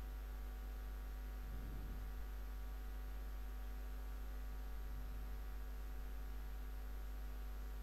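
Low, steady electrical mains hum with a faint hiss underneath, picked up by the recording microphone.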